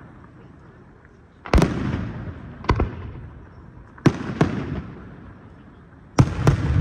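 Aerial firework shells bursting overhead: sharp bangs about every one and a half to two seconds, several in close pairs, each trailing off in a rolling echo.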